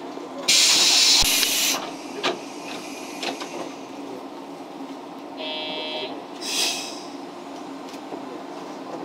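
Compressed air hissing out of the driver's brake valve in a JNR 115 series electric train cab as the brake handle is worked: a loud hiss for about a second near the start and a shorter one about two-thirds through. A brief buzzing tone sounds just before the second hiss, over the train's steady low running rumble.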